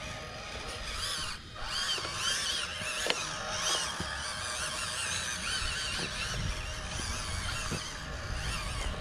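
Small electric motor and plastic gears of a 1/18-scale EazyRC Arizona Desert Storm RC truck whining steadily as it crawls over dirt and rocks, with a few sharp clicks of tyres on stones. Birds call throughout in the background.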